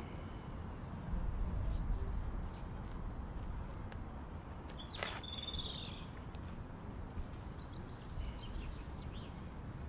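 Outdoor ambience: a low wind rumble that swells for a second or so near the start, with small birds chirping, mostly in the second half, and one sharp click about five seconds in.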